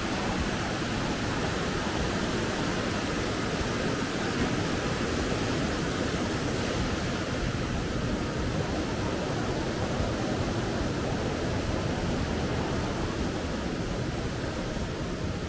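Mountain stream rushing over rocks: a steady, even roar of water.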